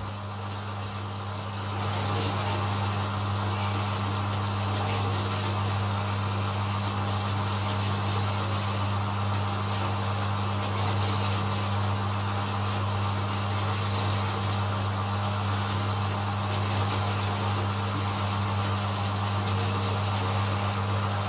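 Horizontal metal-cutting bandsaw running through steel plate with coolant flowing: a steady motor hum under a steady high hiss of the blade in the cut, a little louder from about two seconds in.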